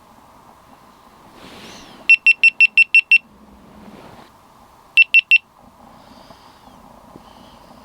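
GoPro Hero 9 camera beeping as it is switched off and back on: a run of seven quick high beeps about two seconds in, then three more about five seconds in.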